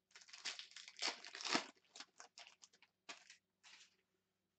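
Foil wrapper of an Upper Deck Synergy hockey card pack being torn open and crinkled by hand: a dense run of crackling rustles, loudest about a second and a half in, thinning to a few separate crackles and stopping about four seconds in.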